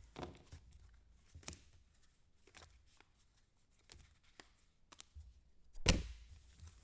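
Trading cards and packaging handled on a tabletop: scattered light clicks and taps, with one louder thunk near the end as something is set down.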